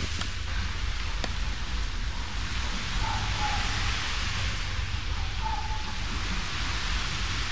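Steady hiss with a low rumble under it, as from a camcorder's microphone picking up open-air background noise. A single click comes about a second in, and two faint, short, falling whistle-like tones come later.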